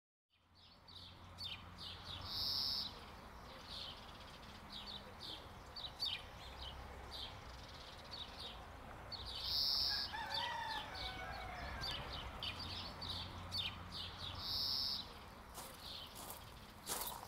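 Quiet rural outdoor ambience fading in: a rooster crows once about ten seconds in, amid short high bird calls repeating every few seconds and scattered small chirps, over a faint low hum.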